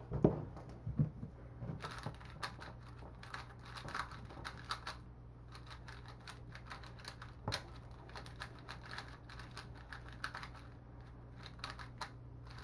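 Valk Mini speedcube being turned, its plastic layers clicking and clacking quietly in quick irregular runs, freshly lubed. One sharper clack about seven and a half seconds in.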